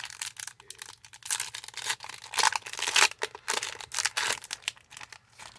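Foil Yu-Gi-Oh booster pack wrapper being torn open and crinkled by hand, a busy irregular crackling that is loudest in the middle.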